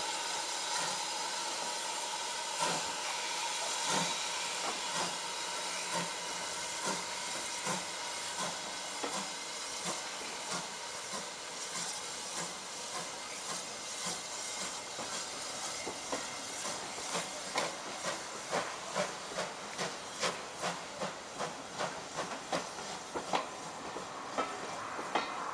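Steam tank locomotive pulling away with a train of coaches: a steady hiss of steam, with a regular beat that quickens and grows louder as the train gathers speed.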